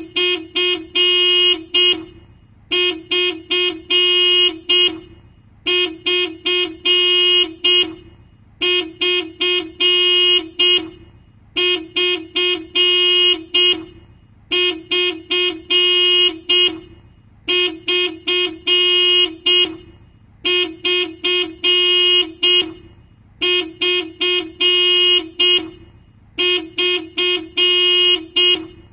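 Car alarm set off, sounding a Toyota's horn in repeated bursts: a group of several quick honks about every three seconds.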